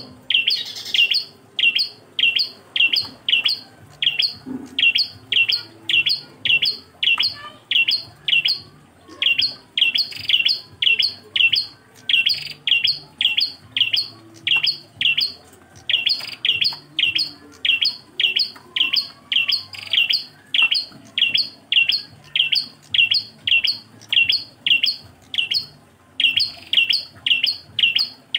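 A single prenjak klawu calling over and over: short, sharp, high-pitched chirps at a steady pace of about two a second, pausing briefly twice.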